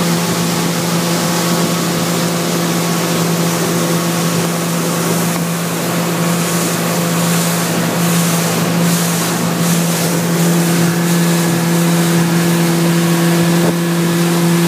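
A small motorboat's engine running at steady cruising speed, a constant drone, over a rush of wind and water.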